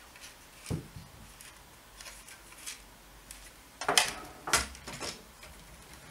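Handling noise from the plastic frame of a disassembled toy quadcopter on a wooden table. There is a dull knock just under a second in, then two sharp clicks about half a second apart near four seconds in, with faint ticks between.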